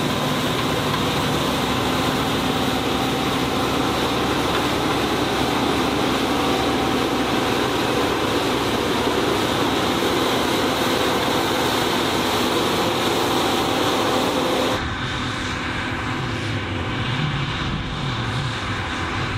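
John Deere W540 combine harvester running steadily, a loud machine drone with a few fixed whining tones. Near the end it changes abruptly to a deeper, duller rumble with wavering low tones.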